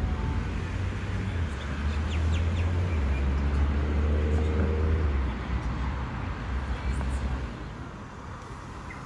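Sydney electric suburban train pulling away from the station, a low hum and rumble with a faint motor whine partway through, fading off near the end.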